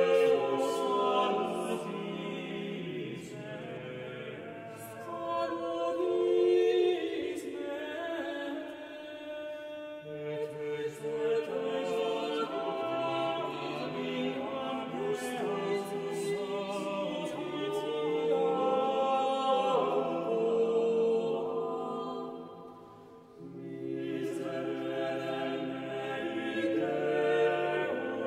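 Background choral music: unaccompanied voices singing long held notes in slow phrases, with a brief lull near the end.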